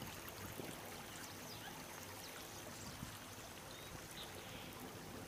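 Faint, steady trickle of water running along a concrete drainage channel.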